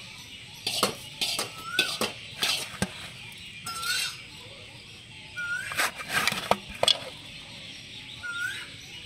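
Marinated chicken 65 pieces being mixed with ground puffed rice in a vessel: scattered clinks and knocks of the pieces and hands against the bowl. A short rising chirp sounds four times.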